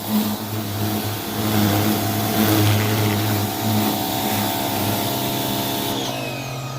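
Greenworks electric pressure washer running with its water spray hissing, then winding down in pitch near the end as the motor cuts out, one of the on-off cycles that it keeps making.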